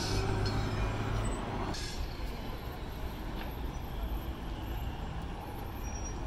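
Road traffic: vehicle engines running. A heavy engine's low hum is strongest in the first second, and a broad hiss stops abruptly about two seconds in.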